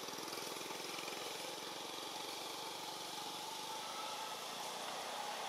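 A small engine running steadily, its low, rapid pulsing even throughout.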